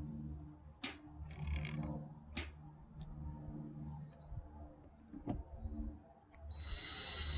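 Scattered light clicks and taps of screws and hand tools being worked into an RV door lock, over a low steady hum. Near the end a loud hiss with a high whine starts.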